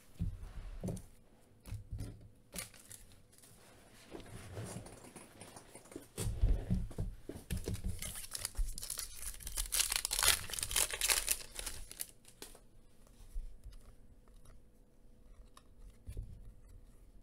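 Foil trading-card pack being torn open, its wrapper crinkling, loudest around the middle, with a few light knocks from handling on the table before it.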